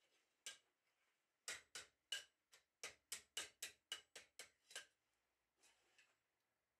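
Light taps on metal: one, then a quick run of about a dozen at roughly four a second, each with a short ring, then two faint ones.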